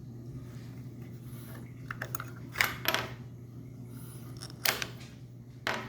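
Batteries being handled: a series of sharp clicks and clinks of small hard objects, the loudest about two and a half to three seconds in and again near five seconds.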